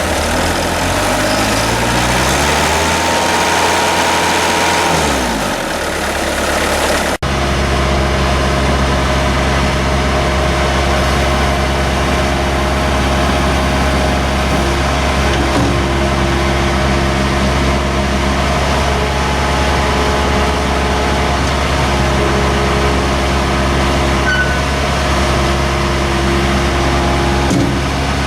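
2001 Bobcat 763 skid steer's Kubota diesel engine running. In the first few seconds it revs up, holds, then drops back down. After a sudden break about seven seconds in, it runs steadily at a constant speed.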